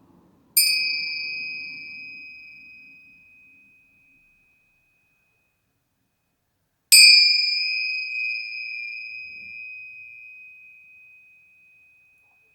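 Crystal singing instrument struck twice, about six seconds apart. Each strike rings as a clear, high, bell-like tone with fainter higher overtones and dies away slowly over several seconds.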